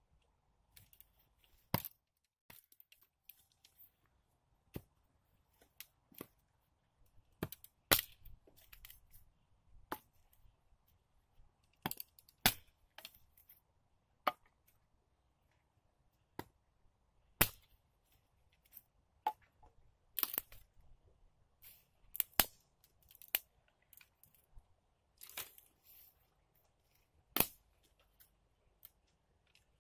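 Dry wooden sticks and branches being snapped and knocked together by hand: irregular sharp cracks, a dozen or so loud ones, with softer rustling and clatter in between.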